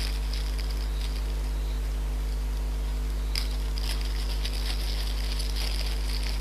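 Clear plastic bag packaging crinkling as it is handled. Scattered crackles grow dense about three and a half seconds in, over a steady low hum.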